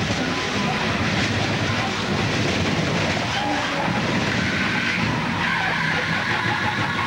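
Onboard audio from a NASCAR stock car sliding sideways in a crash at speed: a loud rush of noise with the tires skidding, and a steady squealing tone coming in about five seconds in.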